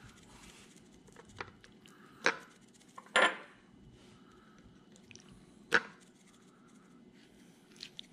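Raw fish fillets being handled and turned over on a plate, with a few short sharp taps and clinks against the plate, the loudest a little before six seconds in.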